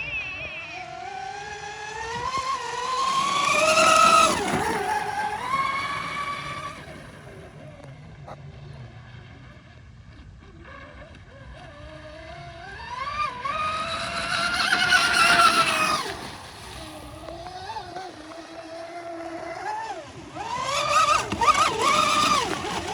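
Electric RC catamaran speedboat (a TFL Zonda on a 6S battery) making high-speed passes. Its motor whine rises and falls in pitch with the throttle and turns, getting loud three times, about four, fifteen and twenty-one seconds in, and fading between passes.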